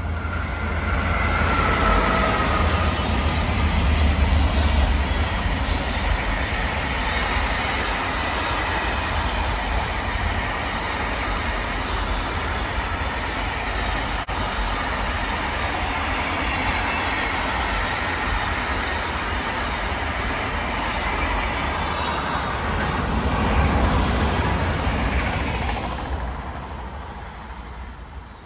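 Siemens Vectron class 193 electric locomotive passing at speed with a long intermodal freight train: a whine that falls in pitch as the locomotive goes by, then the steady rolling noise of the container wagons on the rails, dying away near the end as the last wagon passes.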